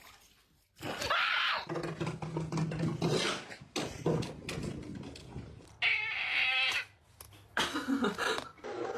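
An animal calling several times in short, separate calls with gaps between them; one about six seconds in is longer and wavers in pitch.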